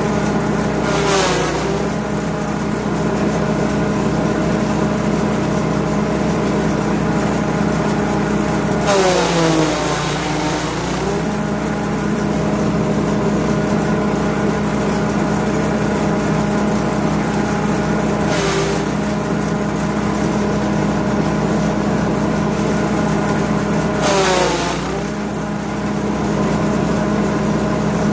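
A grass chopper's 5.5 HP petrol engine running steadily at speed. Four times the engine's pitch sags briefly under load, with a burst of chopping noise as material goes through the blades: about a second in, for about two seconds around nine seconds in, briefly near eighteen seconds, and again near twenty-four seconds.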